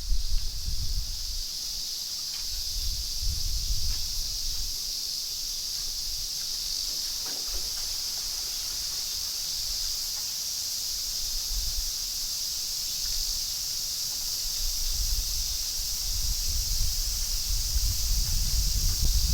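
Woodland trees rustling in gusty typhoon wind, with low wind rumble that swells at the start and again near the end. A steady high-pitched insect drone runs under it throughout.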